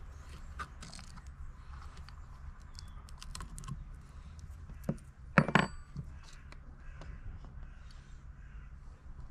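Small handling clicks and clinks from a bottle cap being worked loose with a metal T-wrench and the wrench being set down on a wooden board, with a crow cawing once about halfway through.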